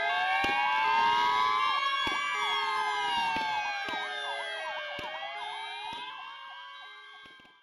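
Several fire engine sirens wail at once, their pitches rising and falling out of step with one another over a steady high tone, with a few sharp clicks. The sound fades out near the end.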